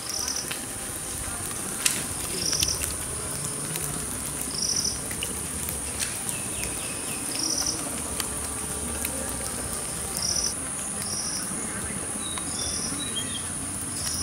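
Steady high-pitched insect drone, with short chirps repeating every second or two and a single sharp crack about two seconds in.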